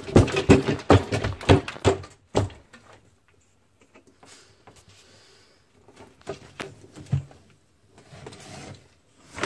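Scuffling and rustling in wood-chip mulch as a monitor lizard thrashes a large rat held in its jaws, with knocks and scrapes. It is busiest in the first two and a half seconds, then comes in quieter scattered rustles.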